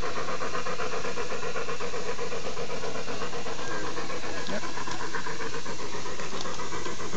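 Live-steam garden-scale Rio Grande locomotive chuffing steadily as it runs under steam, its exhaust beats coming in a fast, even rhythm over a constant hiss.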